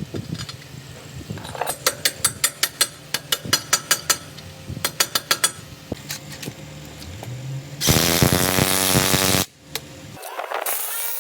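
Metal parts of a wheel loader's wheel hub being worked with hand tools: a run of quick sharp metallic clinks and taps. About eight seconds in, a power tool runs loudly for about a second and a half, then stops abruptly.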